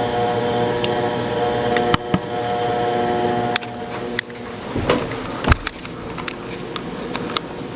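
Harbor Breeze Marco Island ceiling fan motor humming loudly with a steady electrical hum, a fault of this fan. Sharp clicks come about two and three and a half seconds in, after which the hum is fainter, followed by a few knocks around the middle, the loudest about five and a half seconds in, and scattered ticks.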